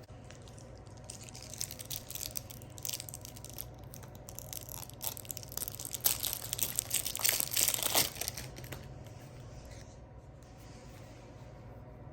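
Board game packaging being torn and crinkled by hand: irregular crackling that grows loudest about six to eight seconds in, then dies away.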